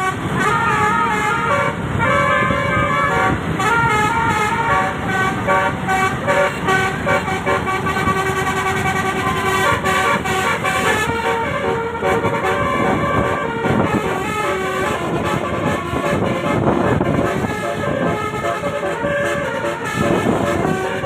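Telolet (basuri) multi-tone musical horn on a Dewi Permata bus, playing a tune of held notes that step between pitches, some warbling in the first few seconds. The bus engine runs underneath.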